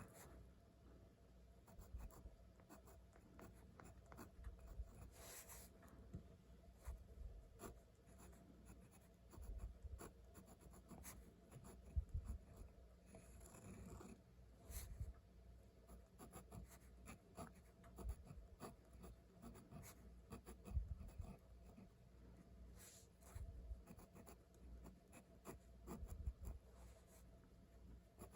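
Handwriting in Japanese on paper: faint, irregular scratches and small taps of pen strokes, in short runs with brief pauses between characters.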